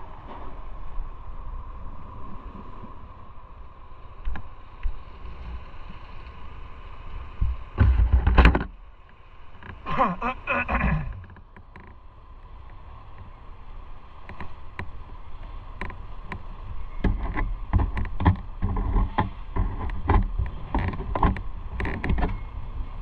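Motorcycle being ridden, its engine running under a steady low rumble. There is a loud rush of noise about eight seconds in and a falling engine note a couple of seconds later. Uneven short bursts of noise run through the last third.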